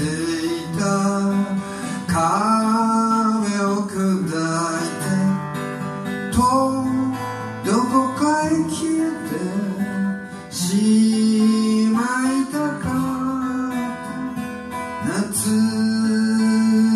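Live acoustic folk song: a man singing at the microphone over a strummed acoustic guitar.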